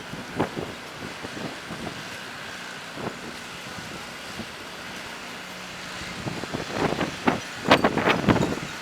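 A car moving slowly over a sand-covered street: a steady rumble of road noise with scattered crunches and knocks, which become busier and louder near the end.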